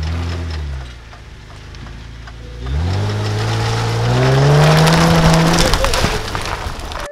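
Jeep engine revving as the Jeep drives through mud. The revs fall away in the first second, then climb steadily from about three seconds in, with tyres splashing through puddles and throwing mud and water for a few seconds.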